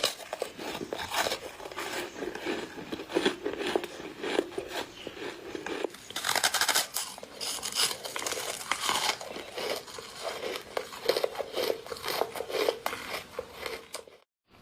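Close-miked crunching and chewing of snow foam: dense, crackly bites with many sharp little crunches. The sound cuts out briefly near the end.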